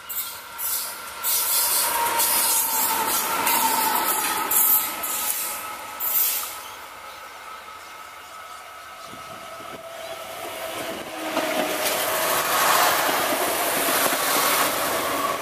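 A diesel locomotive running light goes past with its engine running and steady high tones over the rumble of its wheels. The sound fades, then a diesel suburban railcar comes in and grows louder towards the end.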